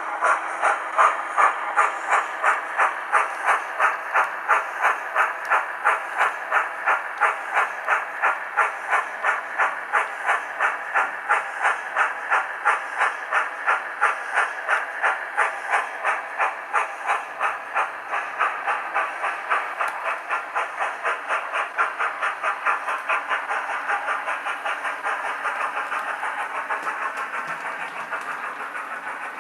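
Steam-locomotive exhaust chuffs played by a Hornby HM7000-21TXS sound decoder through the small speaker in a Hornby BR Standard Class 9F model. They come in a steady, even beat and grow fainter over the last few seconds as the model runs away.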